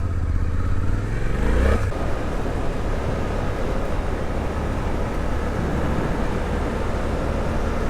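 Suzuki V-Strom 800DE's parallel-twin engine under way: the engine note rises as the bike accelerates up to nearly two seconds in, then settles into a steady rumble mixed with wind and riding noise.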